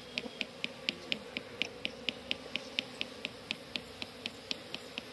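Honey bees humming around an open hive, with an even, high ticking repeating about four times a second.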